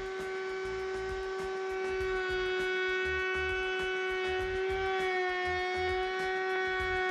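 Router in a router table running at full speed with a steady high whine while a white oak board is fed past a spiral compression bit, cutting from long grain around into end grain. The pitch dips slightly about five seconds in, then holds.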